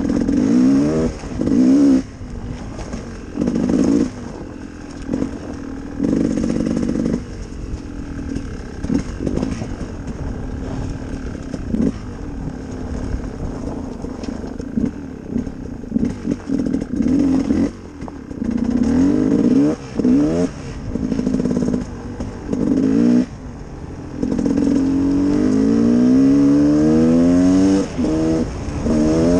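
Gas Gas EC 300R two-stroke enduro motorcycle engine revving in repeated throttle bursts with quieter let-offs between them. Near the end it pulls hard for several seconds, its pitch rising again and again as it accelerates through the gears.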